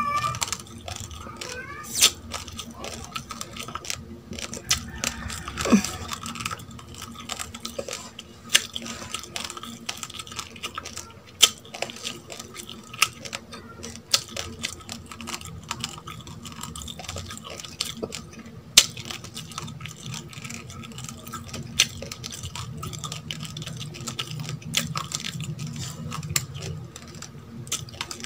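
Uncooked rice grains cracking between the teeth as they are chewed: sharp, irregular crunches about a second or two apart.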